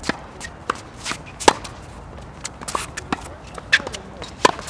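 Tennis ball struck by a racket and bouncing on a hard court during a rally: a string of sharp pops, the loudest about a second and a half in.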